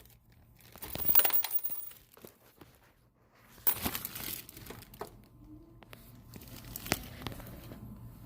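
Loose coins being handled and poured, with rustling and sharp clinks in irregular bursts over a faint low hum.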